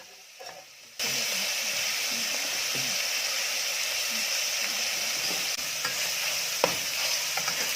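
Minced pork, garlic and fermented fish paste frying in oil in a pan, a steady sizzle that starts abruptly about a second in, with a few light clicks as it is stirred.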